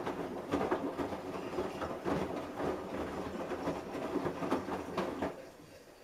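Samsung Eco Bubble front-loading washing machine on its fast cycle, the drum turning and tumbling the laundry in a rhythmic churning, then stopping about five seconds in.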